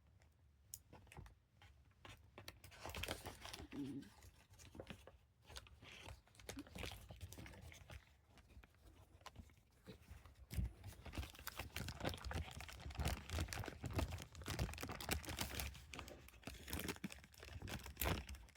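Faint crinkling rustle of a bag, with small clicks and knocks as a combination padlock is handled inside it, busier in the second half.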